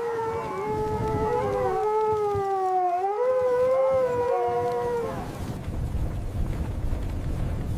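Two canines howling together, long overlapping howls that waver in pitch and end about five seconds in, followed by a low windy rumble.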